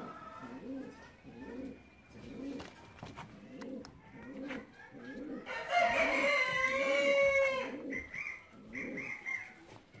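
Fancy pigeons cooing in a low, steady rhythm of about two coos a second. About halfway through, a rooster crows loudly for about two and a half seconds, and short higher bird calls follow near the end.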